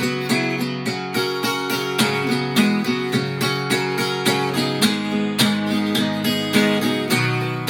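Acoustic guitar strummed in a steady rhythm, an instrumental break in a rock song with no singing.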